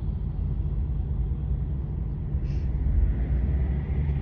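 Heavy truck diesel engine running at idle, a steady low rumble, with a brief hiss about two and a half seconds in.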